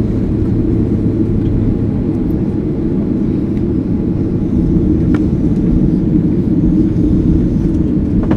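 Airbus A330-300 cabin noise during the landing rollout: a steady rumble of the engines and the wheels on the runway as the jet slows. A low hum in the rumble fades out about two seconds in.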